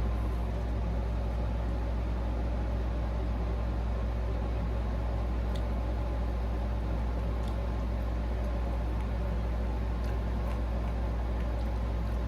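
A steady low hum, unchanging throughout, with a few faint short clicks over it.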